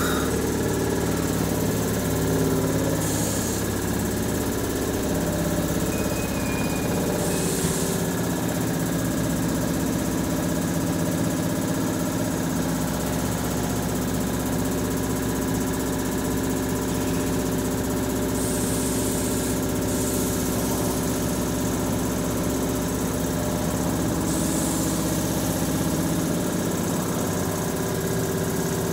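Stationary Hankyu 3000-series electric train humming steadily, its auxiliary machinery and rooftop air-conditioner units running while it stands. Short bursts of hiss come several times.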